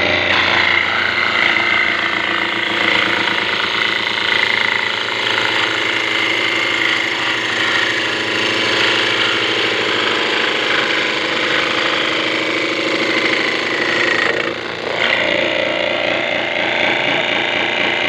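Homemade mini table saw, an old washing machine motor spinning a small circular blade, cutting a strip from a plywood board: a loud steady whine with a rasping edge. The sound dips briefly about three-quarters of the way through, then the saw runs on.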